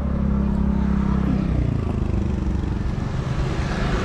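Road traffic: a motor vehicle's engine runs close by with a steady hum that drops away about a second and a half in, leaving steady traffic noise.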